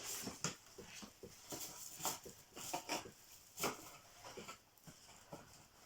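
Cardboard packaging being handled and opened: irregular rustling with light clicks and knocks.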